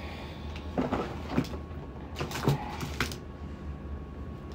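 Rummaging through small household items for a hair clip: a few scattered clicks and knocks over a low steady hum.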